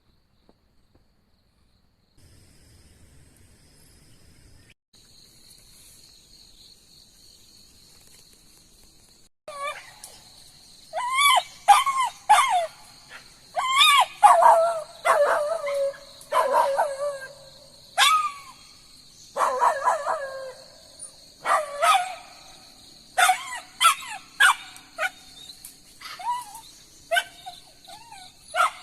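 Insects trilling steadily. About ten seconds in, a dog starts barking and yelping over and over, short sharp calls rising and falling in pitch, coming every second or so.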